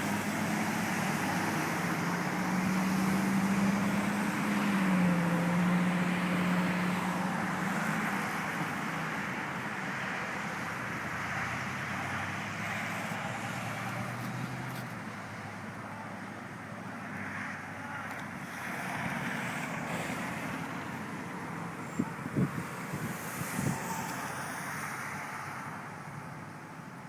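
Truck engine running steadily, its hum stepping down slightly in pitch about five seconds in, then fading into a general noise. A few sharp knocks come near the end.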